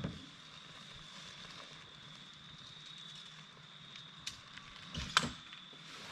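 A few sharp knocks and clatters, the loudest around five seconds in, over a steady high-pitched whine.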